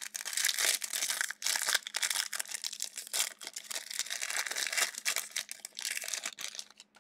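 Wrappers of three Donruss basketball trading card packs being torn open together and crinkled: a dense, irregular crackling that stops just before the end.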